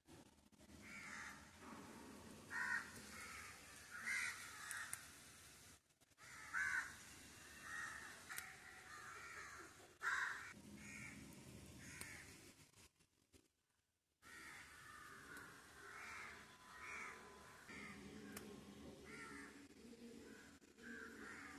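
Crows cawing repeatedly in short, irregular calls, faint over a low background noise. The sound drops out briefly about six seconds in and again around two-thirds of the way through.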